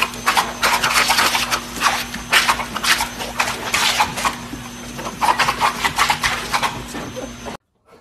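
A pit bull–type dog vocalising in loud, irregular bursts over a steady hiss. The sound cuts off abruptly near the end.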